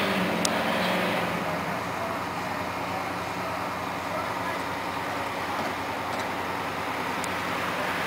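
Steady vehicle and road-traffic noise. A low hum fades out about a second and a half in, and a single sharp click sounds about half a second in.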